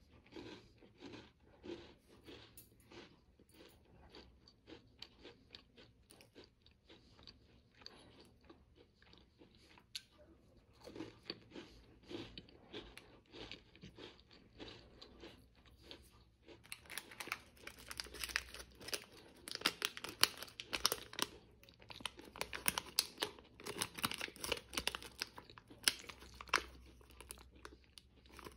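Close-up chewing of a crunchy chocolate-filled biscuit roll, a dense run of small crunches. About two-thirds of the way through it gives way to the crackle of a foil-lined plastic snack wrapper being handled and crinkled.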